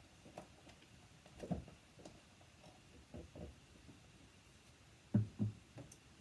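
Containers knocking and bumping as someone rummages through a kitchen cabinet, a few soft knocks followed by two louder ones close together near the end.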